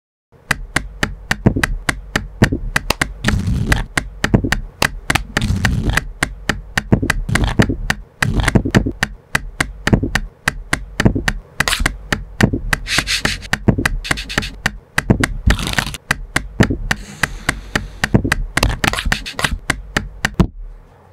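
A deck of playing cards and hands tapped, slapped and flicked against a table to play a quick percussive beat of sharp taps, broken by a few longer hissing sweeps of the cards.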